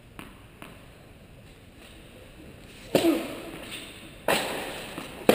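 Tennis ball bounced lightly twice on the court, then struck hard by a racket on the serve about three seconds in and hit back about a second later; each hit is a sharp crack that echoes through the indoor tennis hall.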